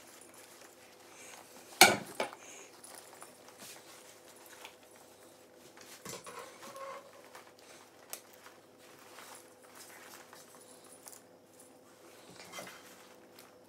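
Handling noise from a fishing vest and a net lanyard being rigged: a sharp click about two seconds in, then scattered light clicks and rustling from the cord and clip. A faint steady hum runs underneath.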